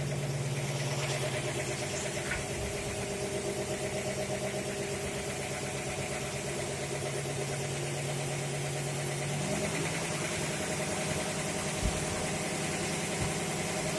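Engine driving a fire pump runs steadily while the pump draws water through hydro-elevator ejectors. Its pitch steps up slightly about two-thirds of the way through as the revs rise.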